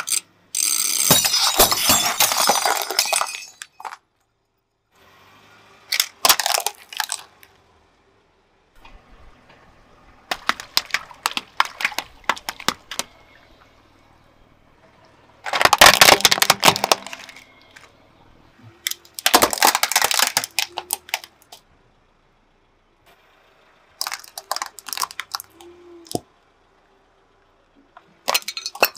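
A series of separate crushing sounds under a car tyre. First, glass flasks packed with water beads crack and shatter for about three seconds. Then come several shorter bursts of crunching and squashing. Near the end, thin metal tins crumple with a clink.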